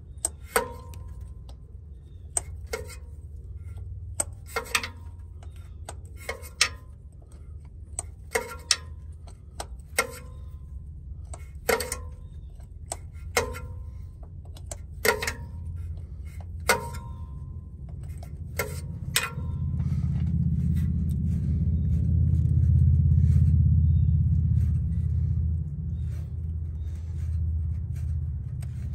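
Wrench on the hydraulic pump's mounting bolts: a sharp metallic clink with a short ring every second or two, about a dozen times, over a steady low hum. About two-thirds of the way in, a low rumble swells up and then eases off.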